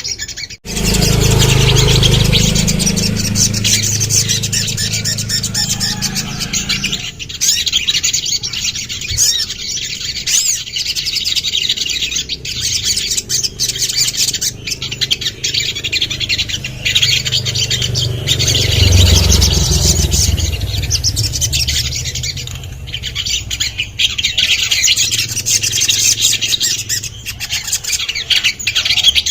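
Sunbird (sogon) song: a continuous run of rapid high chirps, trills and sharp calls. A low rumble sits underneath during the first few seconds and again about two-thirds of the way through.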